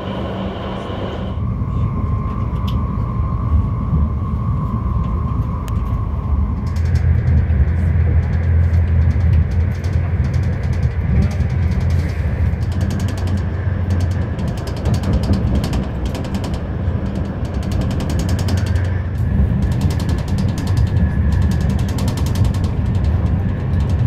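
Electronic background music with a fast ticking beat, over the steady low rumble of a train running.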